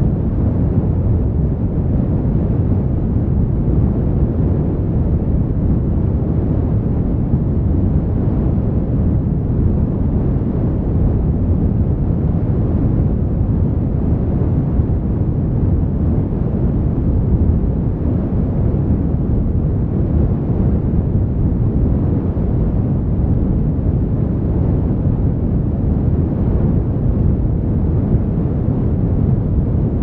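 Wind buffeting the microphone: a loud, steady low rumble with no distinct events.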